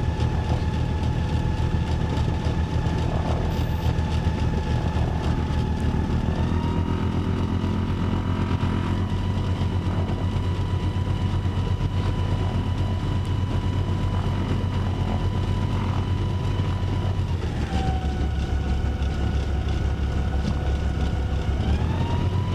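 Motor glider's piston engine and propeller running at low power during taxi, heard inside the cockpit as a steady low rumble. Its pitch shifts smoothly a few times: once about six seconds in, down about seventeen seconds in, and back up near the end.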